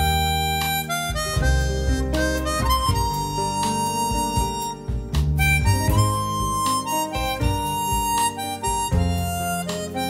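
Instrumental saxophone playing a melody with long held notes over a bass line and backing accompaniment.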